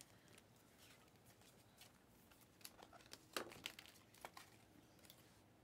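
Faint rustling and soft ticks of Panini Prizm trading cards being slid off a stack and flipped through by hand, with a few sharper card flicks around the middle.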